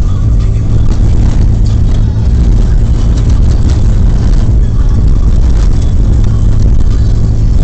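V6 Toyota Tundra pickup driving off-road, heard from inside the cab: a loud, steady low rumble of engine and tyres on rough ground, with a few faint knocks.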